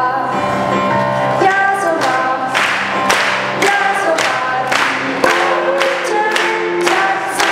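Group singing with musical accompaniment. From about two and a half seconds in, an audience claps along in time, roughly two claps a second.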